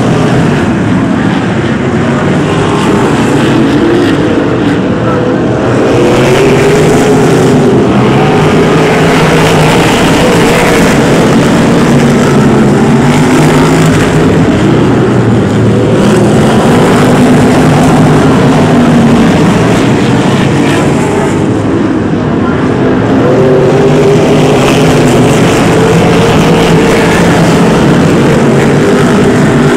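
A pack of BriSCA F1 stock cars' V8 engines running hard together. Their pitches rise and fall as the drivers accelerate and back off.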